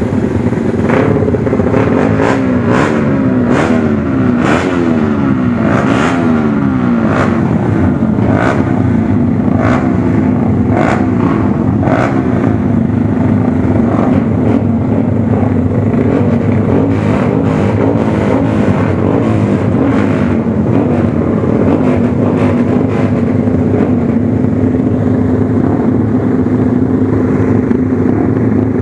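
Several small race motorcycles running in a queue, their engines revved up and down as riders blip the throttles. There are short sharp cracks about once a second for the first twelve seconds, then they settle to a steadier idle drone.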